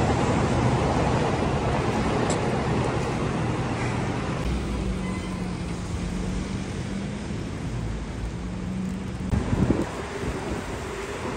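Steady low rumble of street traffic with wind on the microphone. A low, steady hum joins about four and a half seconds in and stops abruptly a little after nine seconds, followed by a brief loud knock.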